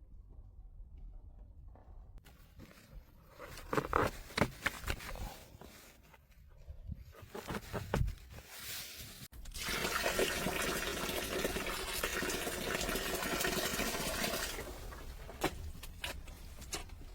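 Knocks and clicks of objects being handled, then liquid pouring steadily into a container for about five seconds, cutting off suddenly, followed by more light clicks.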